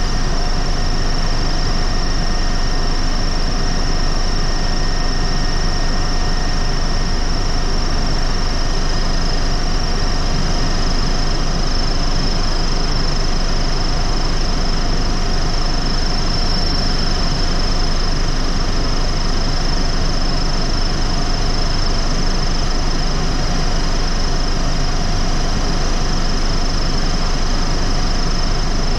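Helicopter in flight heard from on board: a loud, unbroken rush of turbine and rotor noise with a steady high whine held above it.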